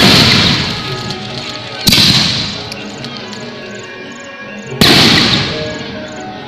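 Aerial firework shells bursting: three loud bangs about two to three seconds apart, each followed by a long echo that dies away.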